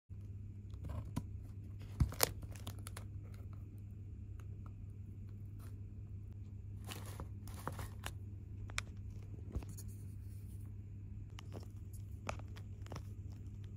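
Plastic takeout packaging crinkling and tearing now and then, with a few sharp clicks and taps, over a steady low hum.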